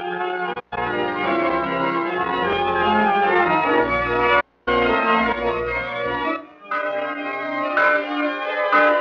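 Soundtrack organ music with sustained chords that cuts out completely twice for a moment. Near the end, a bell starts striking about once a second.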